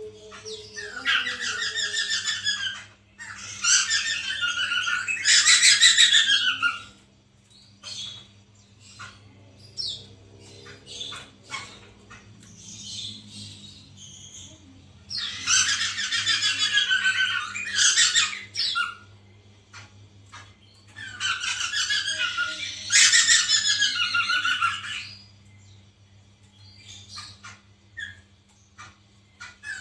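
Poksay mantel laughingthrush singing in loud bouts of varied, trilling song, each lasting a few seconds, with four main bouts and short scattered calls between them. A steady low hum sits underneath.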